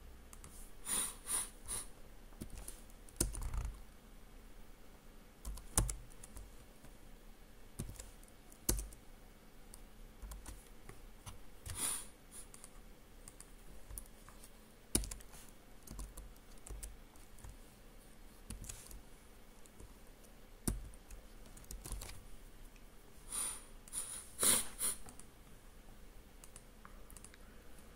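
Computer keyboard keystrokes and mouse clicks, scattered singly and in a few short runs of taps with pauses between.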